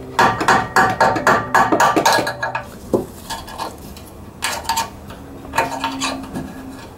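Steel hand tools clinking: a run of quick ringing metallic taps, about four a second, for the first two and a half seconds, then a single sharp clink about three seconds in and a few scattered clinks later.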